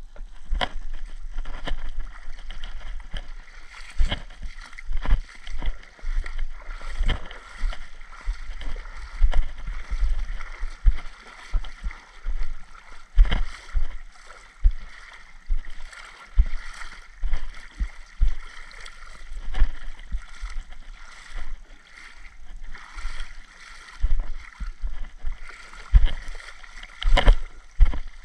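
Water sloshing and splashing with irregular dull thumps about once a second.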